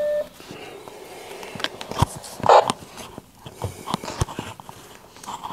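A short electronic beep, then scattered clicks and knocks as a Kenwood TH-79E handheld transceiver with its coax cable attached is handled and set down on a desk.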